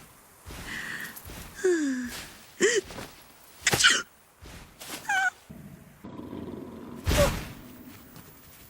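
An animated character sneezing: a series of short, high-pitched cries and gasps that glide up and down, then a loud, noisy sneeze about seven seconds in.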